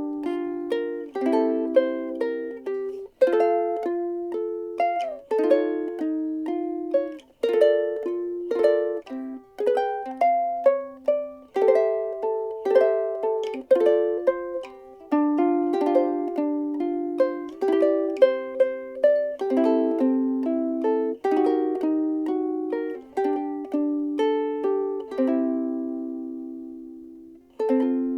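Frayns FRUK-5MS soprano ukulele, solid Honduras mahogany body, played solo: a steady run of chords and picked notes. Near the end one chord is left to ring and fade, then a last chord is struck and rings on.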